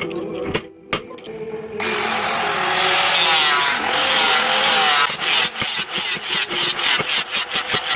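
A power tool working the steel of a cleaver blade forged from a car leaf spring. It starts loud about two seconds in with a dense rasping noise that wavers in pitch, then turns to rough, irregular strokes over the last few seconds.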